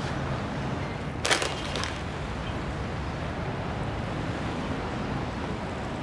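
Steady low background hum, with a brief cluster of sharp clicks about a second in.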